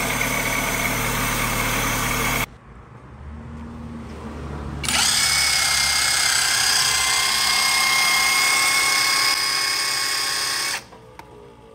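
Fiat Fire 1.0 engine running with its alternator belt removed, a bearing noise still there that may be the water pump and tensor. After a cut, the alternator, off the engine, is spun for an isolated test: a steady high whine starts suddenly, runs about six seconds and stops abruptly, a noise from the alternator itself.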